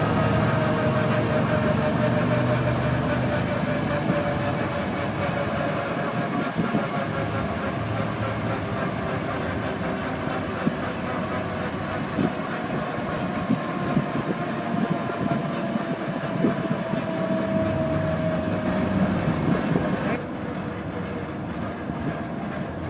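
Bell 429 twin-turbine helicopter on the ground after landing, its engines and main rotor winding down. A steady mechanical whine slowly falls in pitch, with scattered light knocks.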